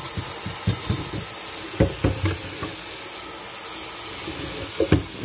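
Kitchen tap running into the sink with a steady hiss, while a metal saucepan is moved over it and knocks against the sink and stove several times, loudest about two seconds in and near the end.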